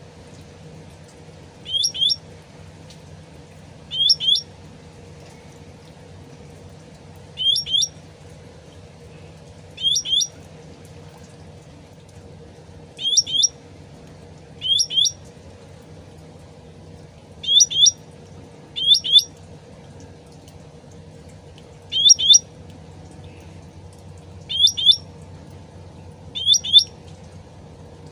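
Cucak ranting songbird calling repeatedly: short, sharp chirping phrases, some doubled, about every two to three seconds, over a steady low background noise.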